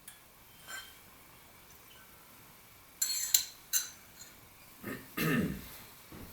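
Light glass taps and clinks from water being dripped into a whisky glass: a faint tap near the start, then two sharp ringing clinks about three seconds in. A short throat-clearing sound follows near the end.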